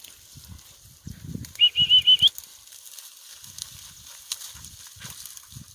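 A quick run of five short, high chirping notes about a second and a half in, the last one rising, over soft irregular rustling of steps through brush.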